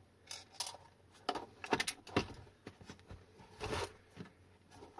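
Small screws and plastic battery-case parts being handled: scattered light clicks, taps and a brief scrape, at irregular intervals.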